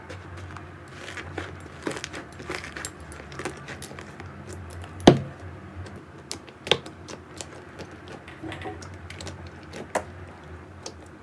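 Slime being handled, with scattered sticky clicks and crackles and one loud pop about halfway through, over a faint steady hum.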